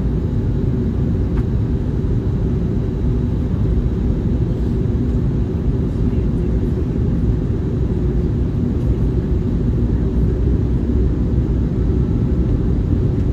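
Steady low rumble inside the cabin of an Airbus A321neo on its descent to land: airflow and the wing-mounted Pratt & Whitney PW1100G geared turbofans, heard from a window seat beside the engine.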